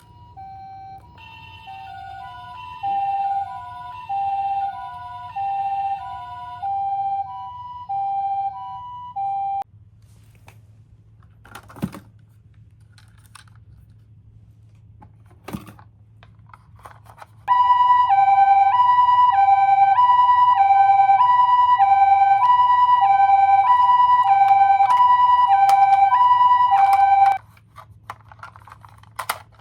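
Toy ambulance's electronic siren sounding the two-tone hi-lo "pee-poh" pattern of a Japanese ambulance, about ten seconds long. A few sharp clicks follow, then the siren sounds again, louder, for another ten seconds or so.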